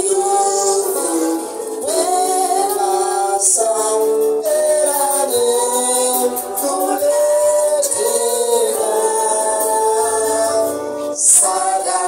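Worship music with a group singing, women's voices most prominent over the instrumental backing.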